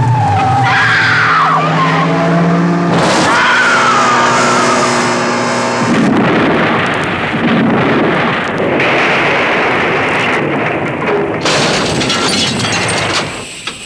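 Car engine revving with tyres squealing over the first few seconds, then the car crashing as it leaves the road and tumbles down a rocky slope: a long stretch of crunching, scraping impacts and rumbling that dies away suddenly near the end.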